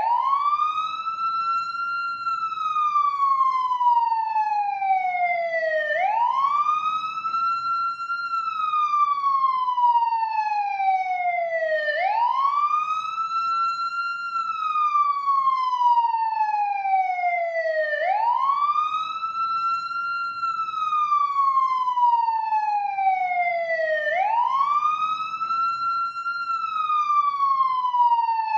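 Ambulance siren in a slow wail: the pitch climbs quickly for about two seconds, then falls slowly for about four, the cycle repeating about every six seconds. A faint low rumble runs beneath it.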